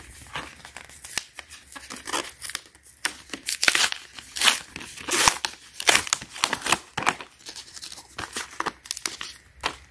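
Paper-backed card packaging of a pair of pruning shears being torn and peeled apart by hand, in a run of irregular rips and rustles.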